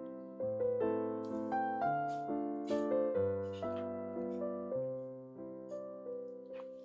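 Background piano music: a steady melody of notes, each one struck and fading away.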